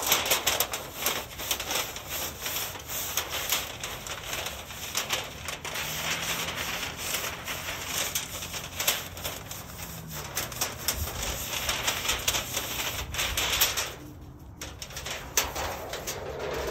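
Thin, flexible metal portable stovepipe crinkling and scraping in a dense, irregular run of small clicks as it is unfolded, worked open and scrubbed down, with a brief lull about fourteen seconds in.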